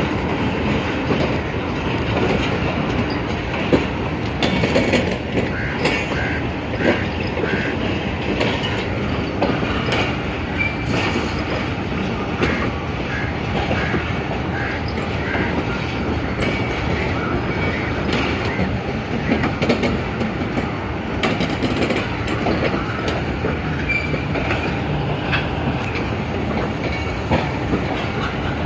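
Passenger train coaches rolling past at low speed, a steady rumble with the wheels clicking over the rail joints and a few brief faint wheel squeals.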